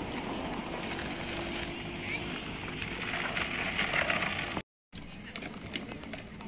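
Skate wheels rolling on a paved path: a steady rumbling hiss. It cuts out for a moment about two-thirds of the way through, then goes on a little quieter.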